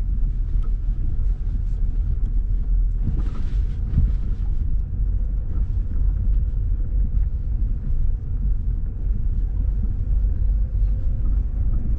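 Inside a Lada Vesta on a corrugated washboard road: a steady, heavy low rumble of tyres and suspension on the ripples, with scattered light knocks and a brief louder clatter about three seconds in. No pronounced suspension knocking is heard on the new ASOMI struts.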